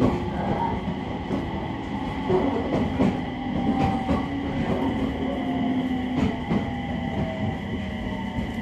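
Running sound inside a JR East 701 series electric train's motor car: a steady rumble of wheels on rail, with the whine of the traction equipment as a few held tones and scattered clicks from the track.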